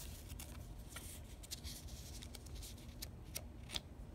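Small squares of patterned craft paper being handled and flipped through: faint paper rustles and light ticks, with a couple of sharper ticks past the middle.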